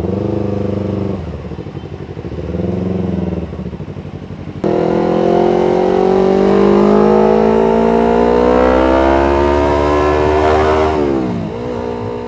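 Yamaha MT-25's 250 cc parallel-twin through an aftermarket R9 H2 full titanium exhaust: running low with a couple of small throttle blips, then suddenly louder as it accelerates in one long pull with steadily rising pitch, falling away near the end as the throttle closes.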